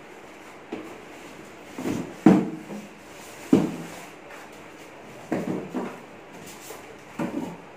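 Cardboard keyboard carton being handled and opened: a series of short knocks and thumps, the loudest about two seconds in, with scrapes of cardboard and the keyboard's wrapping as the instrument is lifted out of the box.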